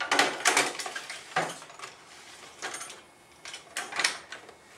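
Metal hand tools clinking and clattering in a steel tool cart drawer as it is handled, in several short bursts of knocks.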